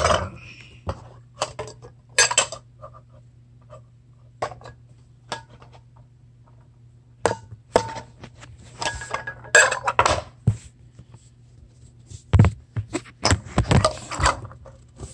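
Fidget spinner's metal tin being handled: scattered metallic clicks, clinks and knocks, bunched into several short clattering spells, as the tin and lid are worked and the spinner rattles against the metal.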